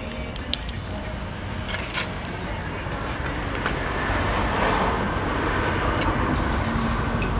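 Street traffic rumbling, swelling from about halfway in as a vehicle passes close by. A few light clicks and clinks from the table.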